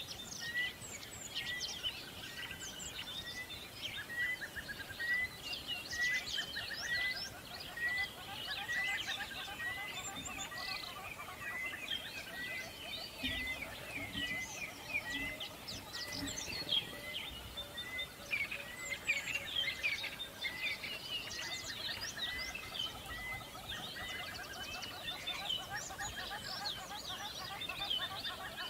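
Many small birds chirping and twittering at once, with one short note repeated steadily about every two-thirds of a second until near the end.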